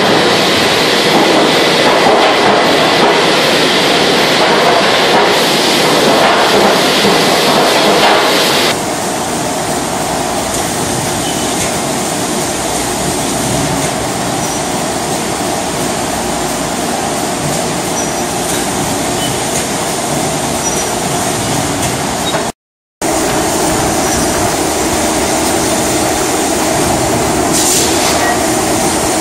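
Steady, loud din of a hot forging press line running, with heavy machinery noise and no distinct blows. The noise changes in character about nine seconds in and drops out for a moment later on.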